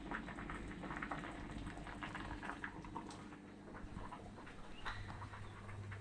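Onions and zucchini sautéing in a pan on a stovetop: a dense, irregular crackle of small pops and clicks.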